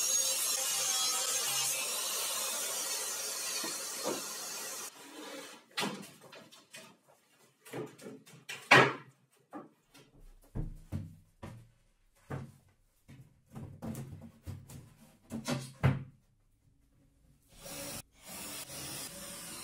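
A circular saw cuts through a laminated board with a dust extractor drawing on it, then stops abruptly about five seconds in. Scattered wooden knocks and taps follow as boards are handled and set in place, the loudest a sharp knock around the middle. Near the end a cordless drill starts running steadily as it drives a screw.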